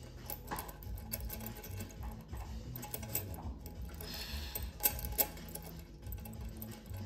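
Small metal pieces of an interlocking burr-type puzzle clicking and scraping against each other as they are worked loose by hand, with a short sliding scrape about four seconds in and two sharper clicks just after.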